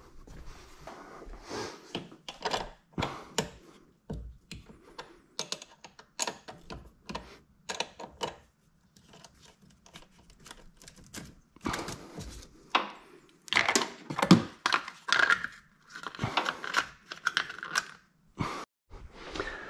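A small wrench clicking and scraping on a car battery's negative terminal clamp as it is loosened and taken off: a long run of irregular, sharp metallic clicks and taps, busiest and loudest near the end.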